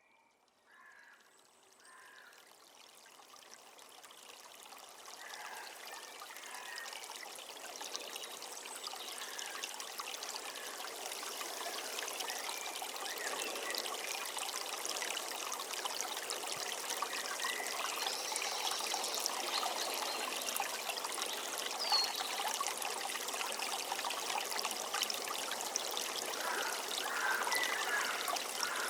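Running water of a river or stream fading in gradually over the first ten seconds or so, then flowing steadily, with a few faint bird calls over it.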